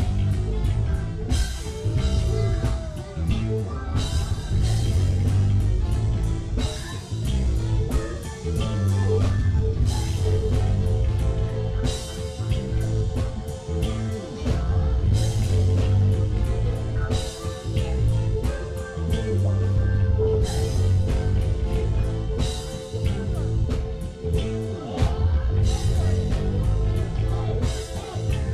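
Live funk band playing: a heavy, steady bass line on electric bass guitar over a drum kit beat, with electric guitar and keyboards. A long high note is held from about ten seconds in.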